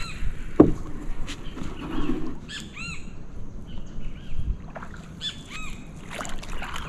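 Birds calling in short arched chirps, a run of them around the middle and more near the end. A single knock just under a second in is the loudest sound.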